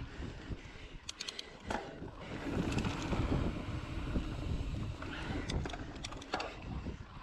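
Mountain bike riding down a dirt singletrack: wind buffeting the microphone and tyres rumbling over the dirt, loudest through the middle, with sharp clicks and rattles from the bike now and then.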